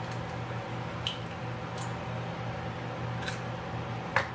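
Eggs being cracked into a steel mixing bowl: faint taps and wet squishing of shell and egg, with a sharper tap near the end, over a steady low hum.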